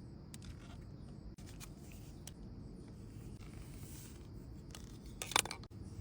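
Light handling clicks and rustles against a low background hiss, with one louder short clatter near the end.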